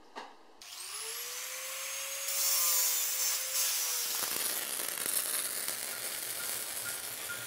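Logo intro sound effect: a hissing whoosh that swells in about half a second in, with a faint tone that rises and then sinks slowly, settling into a steady rushing hiss.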